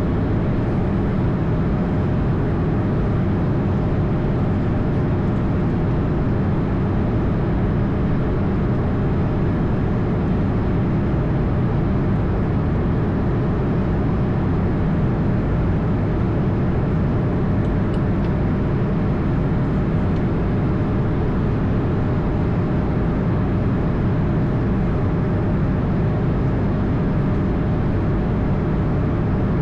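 Steady cockpit noise of an Airbus A220: an even rush of airflow and engine drone, with a faint steady hum.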